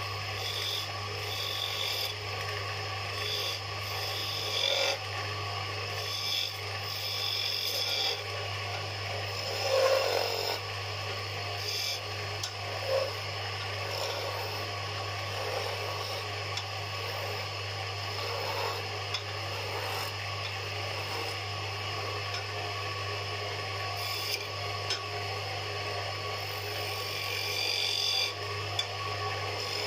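Wood lathe running with a steady motor hum while a cutting tool scrapes against the spinning wooden spindle on and off, with a louder scrape about ten seconds in.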